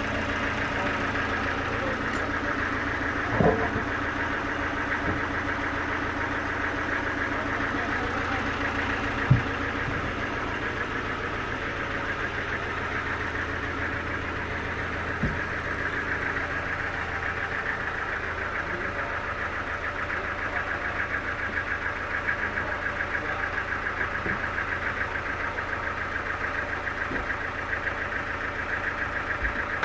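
A sawmill's engine running steadily, with a few sharp knocks, the loudest about nine seconds in.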